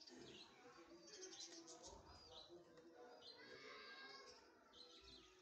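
Faint bird chirps, short high calls repeating about once a second, over a low murmur of background sound.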